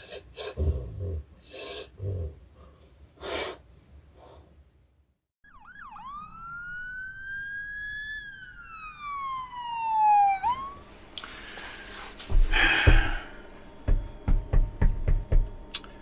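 A resting dog gives a few short snorting breaths. Then a single siren wail rises and slowly falls over about five seconds. A loud burst of noise and a quick run of thumps follow.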